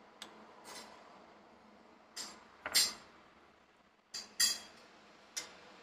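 Metal spoon clinking and scraping against a glass bowl and plate while scooping and serving yogurt: a series of short clinks, the loudest about three seconds in and again about four and a half seconds in.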